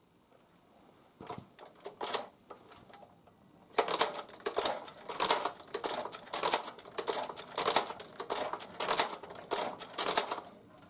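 Hand-lever Tippmann Boss leather stitching machine sewing a short run of stitches: a couple of clicks, then from about four seconds in a rapid series of mechanical clacks as the lever is worked. The machine is one that the owner says keeps binding up and missing stitches.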